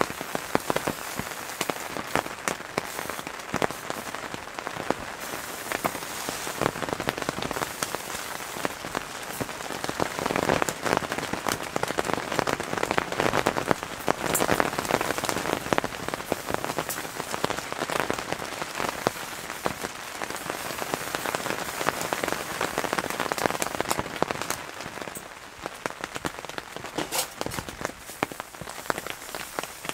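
Rain pattering on a tent's fabric and clear plastic window, heard from inside the tent as a dense patter of individual drops. It swells a little midway and eases toward the end.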